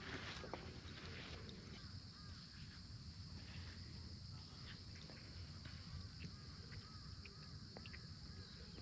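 Faint outdoor ambience: a steady high-pitched drone, with short faint chirps repeating now and then and a low wind rumble.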